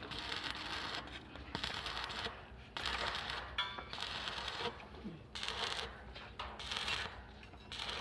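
Electric arc welding crackling and hissing in runs of about a second, stopping and restarting several times.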